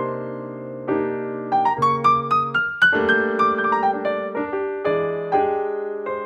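Background piano music: held chords over a low bass note, with a rising run of single notes in the middle.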